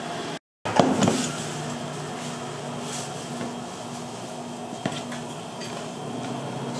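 Kitchen clatter of utensils and dishes knocking, loudest in a burst about a second in, then single sharp clicks, over a steady low hum.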